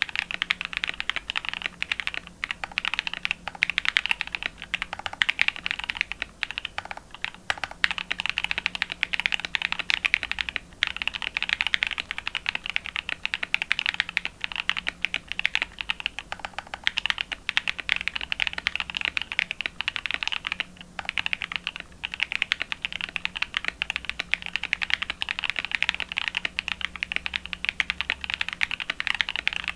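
Fast, continuous typing on a Matrix Vita custom mechanical keyboard with lubed NovelKeys Cream linear switches, an aluminium plate and PBT keycaps, broken by two brief pauses.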